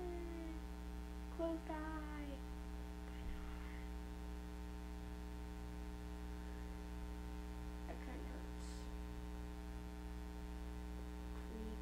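Steady electrical hum with many overtones. A short falling wail comes about a second and a half in.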